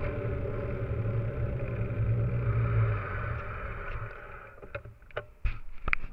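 Mountain bike's knobby tyre rolling over paving tiles, a steady rumble that fades as the bike coasts to a stop about four seconds in. A few sharp knocks and clicks follow near the end.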